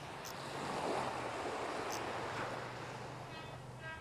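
Small waves washing up on a sandy beach, swelling and falling back twice. A short whining tone comes in near the end.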